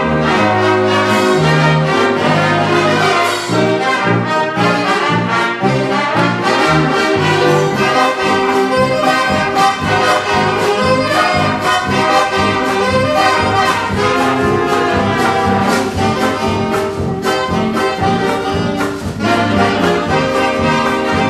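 A 1920s-style jazz dance band plays on vintage instruments. Trumpets and trombone lead over saxophones, with a bass line and a steady dance beat.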